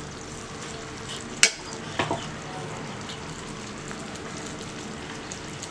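Fig pieces simmering in a reducing sugar syrup in a nonstick frying pan, a steady sizzle and bubbling as the syrup thickens. Two brief clicks come about one and a half and two seconds in.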